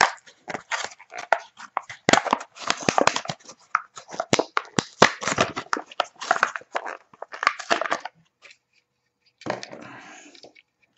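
A die-cast toy truck's card-and-plastic blister pack being torn open by hand. The card tears and the plastic crackles in a busy run of rustles for about eight seconds. A shorter rustle follows near the end.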